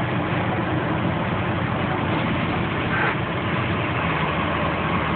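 Car driving at highway speed, heard from inside the cabin: a steady mix of engine hum and road noise.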